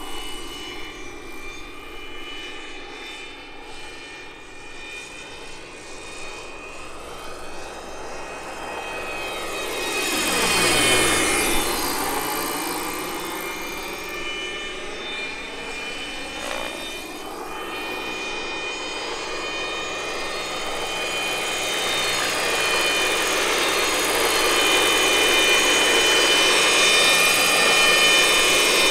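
Electric RC scale model Aerospatiale SA-315B Lama helicopter in flight, its sound module playing a steady turbine whine over the rotor noise. It sweeps past loudest about eleven seconds in, then grows louder again near the end as it comes in low.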